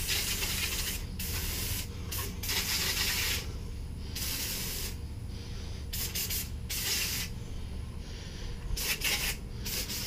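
Aerosol can of insect spray hissing in about eight bursts, some brief and some about a second long, with short gaps between them, as an insect nest is sprayed.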